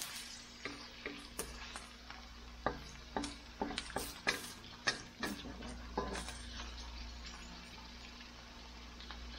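Chopped vegetables sizzling in hot oil in a stainless steel wok, stirred with a wooden spatula that scrapes and knocks against the metal pan. The stirring strokes come thick for the first six seconds or so, then the frying goes on as a steady quiet sizzle.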